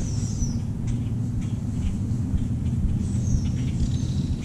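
A steady low rumble across the outdoor scene, with short high bird calls sliding downward at the start and again about three seconds in.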